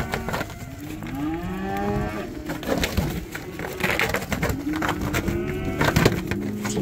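A pen of steers bawling, several calls overlapping one another, with a few sharp knocks among them.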